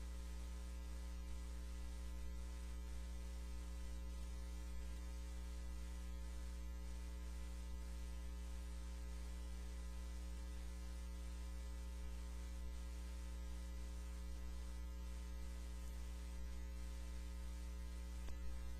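Steady electrical mains hum with a faint even hiss underneath.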